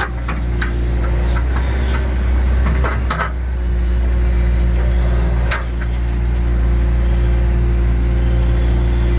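Excavator diesel engine running steadily under a constant low drone, with a few short knocks and clanks from the machine working.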